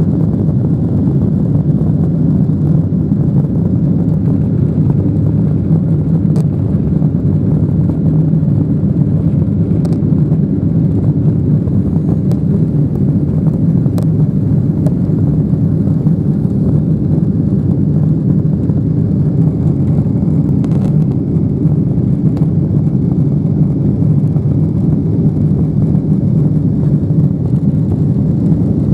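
Steady, loud cabin roar inside a Boeing 777-300ER as it takes off and climbs out, its GE90-115B turbofans at takeoff power together with the rush of air around the fuselage.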